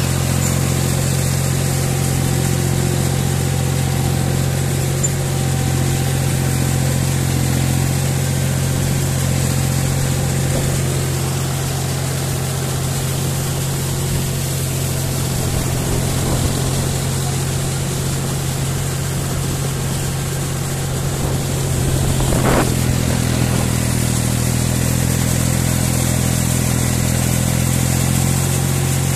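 John Deere 5045 tractor's three-cylinder diesel engine running steadily under load while working in paddy-field mud. About three quarters of the way through there is a brief rising sweep, and the engine runs a little louder after it.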